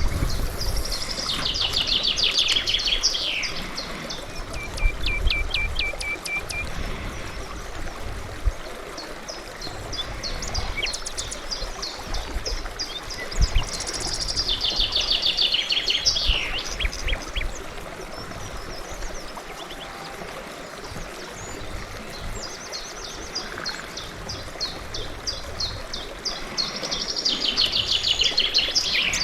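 Birds singing outdoors: one bird repeats a descending song phrase of about two to three seconds three times, roughly every thirteen seconds. Other birds call in between with shorter notes, including a short run of even, evenly spaced notes, over a steady low rumble.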